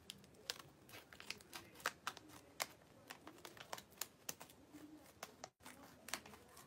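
Small scissors snipping slowly through a sealed chip pouch, the packaging crinkling: a string of faint, irregular snips and crackles.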